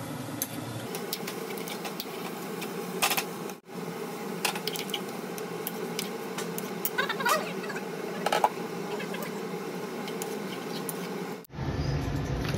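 Cooking sounds at a kadhai: a steady low hum with scattered sharp clicks and scrapes of a metal utensil against the pan, broken twice by abrupt cuts.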